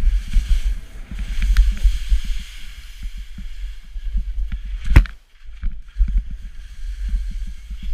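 Wind buffeting the microphone of a GoPro worn by a skier, with the hiss of Völkl Bridge skis scraping and carving over packed snow, and one sharp knock about five seconds in.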